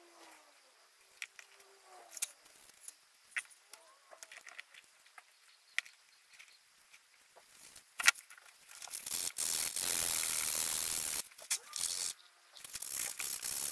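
Sandpaper, 120 grit, rubbed by hand on a carved wooden lure body. Light clicks of handling come first; about nine seconds in a loud, steady scraping starts and runs for about two seconds, then comes back as shorter strokes near the end.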